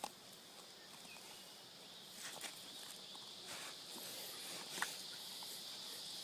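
Insects buzzing steadily in a high, even drone, with a few faint clicks and taps from handling close by.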